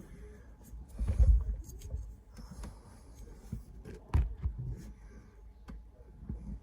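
Handling noise: a low bump about a second in, a sharp click about four seconds in, and faint scattered clicks between.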